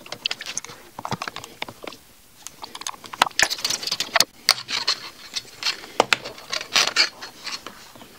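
Light handling of small metal on a hand planer: a steel ruler laid and shifted on the planer's metal sole, making irregular light clicks, taps and scrapes. The sounds are sparse at first and come thick and fast from about two and a half seconds in.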